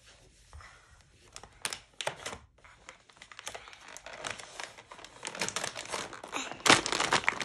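Crinkly plastic packaging rustling and crackling as it is handled, sparse at first and getting louder and busier toward the end.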